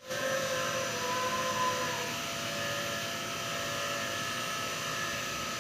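A steady mechanical hum with several held tones over a noisy whir, like a running fan or motor.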